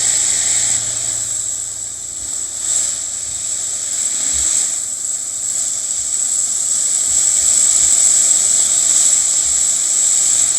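Food sizzling in a hot frying pan: a steady, loud frying hiss with faint crackles.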